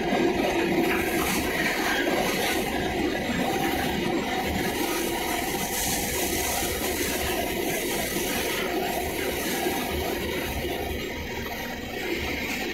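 Steady rush of churning, foaming sea water squeezed between a pilot boat's hull and a bulk carrier's side, with a low engine rumble underneath.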